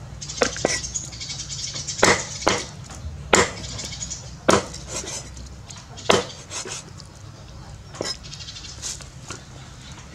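Cleaver chopping raw chicken on a thick wooden chopping block: sharp, irregular chops, roughly one a second.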